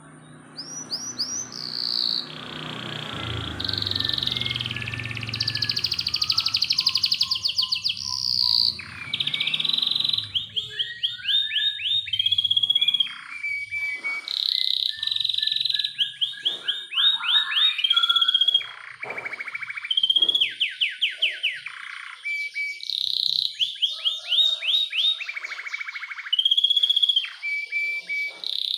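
Domestic canary singing a long song of fast trills and rolls: phrases of rapid repeated high notes with short gaps between them. A low rumble sits under the song for the first several seconds.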